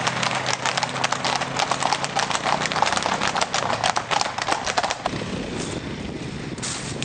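Horses' hooves clip-clopping on a road, many strikes in quick succession, over the low hum of a quad bike engine. The hoofbeats stop about five seconds in and give way to wind on the microphone.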